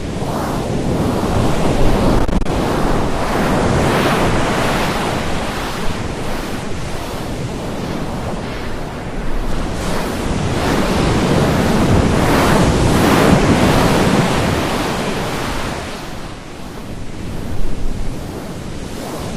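Loud rushing noise with no tone, swelling and easing every few seconds, with a brief dip about three-quarters of the way through.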